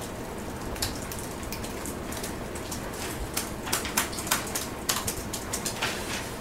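Irregular clicking of laptop keys being typed on, over a steady room hiss, with the clicks coming thicker in the second half.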